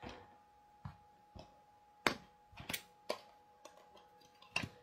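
About seven light, irregular clicks and taps of a metal ink pad tin being handled: picked up, opened and set down on the craft mat. A faint steady hum runs underneath.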